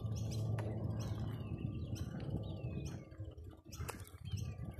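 Birds chirping and calling, short high chirps with a couple of falling whistles, over a steady low rumble that dips briefly about three and a half seconds in.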